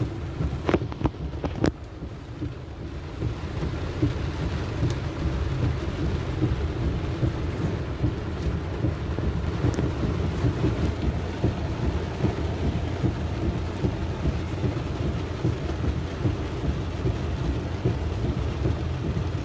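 Heavy rain heard from inside a car's cabin while driving through flooded streets: a steady low rumble with a hiss of rain and water, and a few sharp clicks in the first two seconds.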